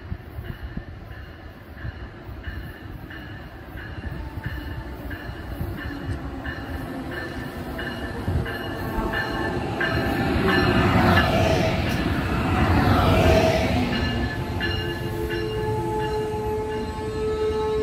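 Amtrak train with stainless-steel Amfleet coaches pulling into the station, growing louder as it nears and passes the platform, loudest near the middle. Toward the end a steady brake squeal rises over the rumble as the coaches slow past.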